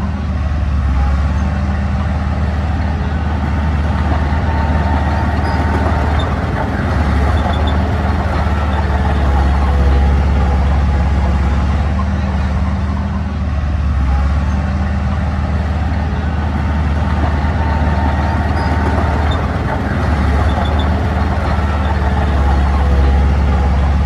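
Diesel engine of heavy earthmoving equipment running steadily, a low drone that holds level.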